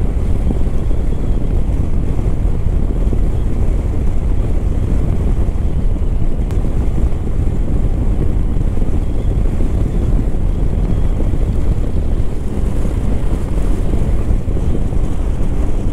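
Steady wind rush buffeting the microphone of a motorcycle riding at road speed, low and loud, with no clear engine note standing out.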